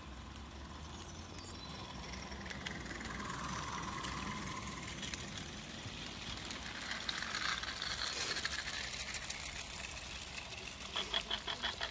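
Small live-steam garden-railway locomotive running past close by, its steam exhaust hissing, followed by the rattle and clicking of a long train of small wagons rolling over the rails. The clicking gets denser in the second half and turns into a quick regular ticking near the end.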